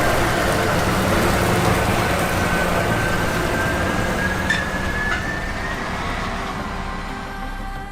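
Combine harvester running steadily: a dense drone of engine and machinery with a high whine over it. Two light clicks come about four and a half and five seconds in, and the sound eases off a little near the end.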